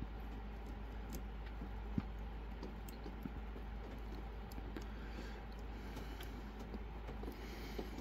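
Faint metallic clicks and ticks of a hook pick working the pin tumblers of a Cajun Lockpick Silver Bullet lock under a tension wrench, scattered and irregular, with one sharper click about two seconds in.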